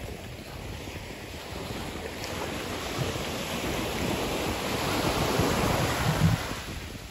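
Sea waves washing in at the shoreline, a rushing surge that builds over a few seconds and eases near the end, with wind buffeting the microphone.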